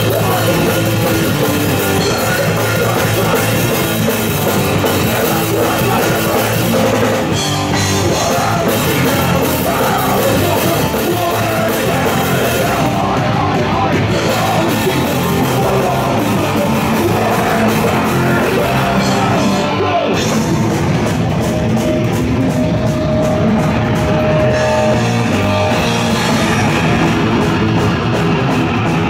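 Live rock band playing, with electric guitars and a drum kit, amplified through the stage sound.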